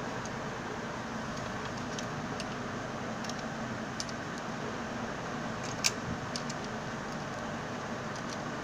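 Small sharp clicks and taps of plastic and metal parts being handled as a clip is fitted onto the end of a Xerox fuser's web supply roller, the sharpest click about six seconds in, over a steady background hiss.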